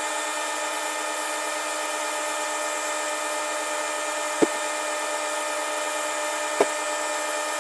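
Boxford metal lathe running steadily while a twist drill in the tailstock bores into a spinning brass bar held in the chuck. The sound is a steady hum of several pitches, with two short knocks about four and a half and six and a half seconds in.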